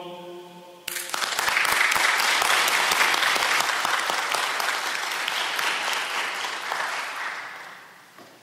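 The last held chord of a men's choir dying away, then an audience breaking into applause about a second in; the clapping holds and fades out near the end.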